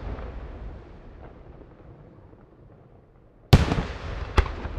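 Aerial firework shells bursting. The rumbling echo of one burst dies away, then about three and a half seconds in a loud bang is followed less than a second later by a second sharp crack, both trailing off in a rolling echo.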